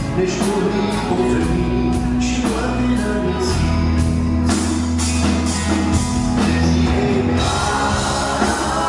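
Live rock band playing: electric guitar, bass and drums with regular cymbal strikes, heard from among the audience in the hall.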